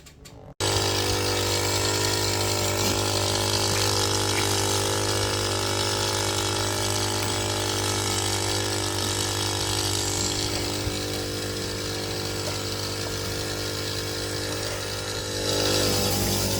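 A machine running with a steady hum over a hiss. It starts abruptly about half a second in and gets a little louder near the end.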